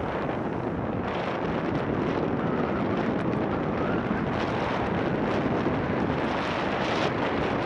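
Wind rushing over a microphone moving at speed down a road, a steady dense roar with slight rises and falls in loudness.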